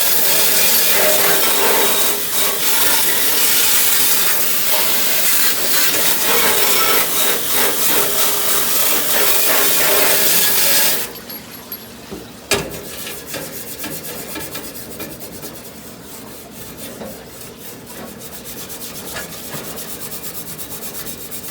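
Water spraying hard into a refrigeration condenser coil in a loud, steady hiss that cuts off suddenly about 11 seconds in. A click follows, then a quieter, rapid rubbing rasp.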